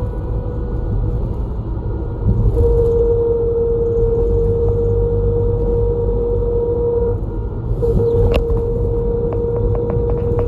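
Route bus running along the road, heard from inside the cabin: a steady low engine and road rumble with a constant mid-pitched whine. There is a sharp click about eight seconds in, followed by a few light ticks.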